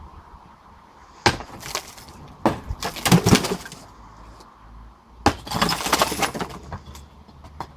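Sledgehammer striking a block wall three times, each blow followed by a clatter of breaking and falling pieces.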